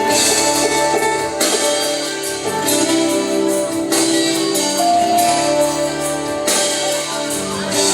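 Instrumental intro of a worship song played by a band, with guitar over sustained chords and a stroke every second or so.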